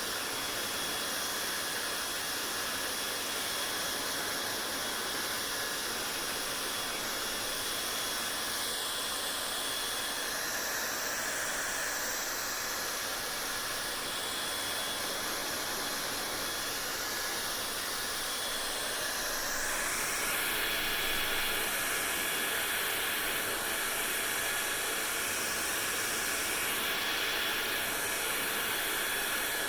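Hair dryer running continuously: a steady rush of air with a faint whine. The sound of the airflow shifts between about a third and two thirds of the way through, and it is slightly louder after that.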